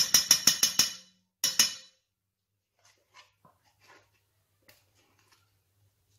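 A metal spoon clinking rapidly against a stainless steel mixing bowl, a quick run of ringing strikes for about a second, then one more short clink and a few faint light taps.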